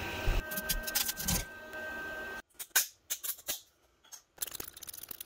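3D printer running as it prints a plastic part: a steady hum with a thin high stepper-motor whine and quick clicks of the moving print head. It cuts off suddenly about two and a half seconds in, followed by faint clicks and rubbing of the printed plastic adapter being handled.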